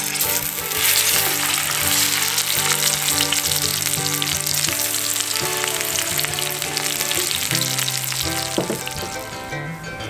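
Bacon frying in a pan: a dense, steady sizzle with many small pops, swelling about a second in and easing off near the end. Background music plays underneath.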